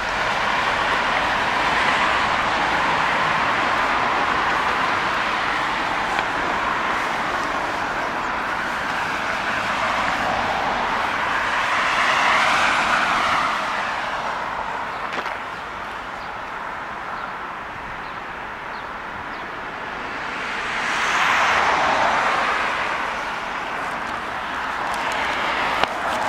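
City road traffic: a continuous wash of cars going by on a nearby road, swelling twice as vehicles pass close, about halfway through and again later on.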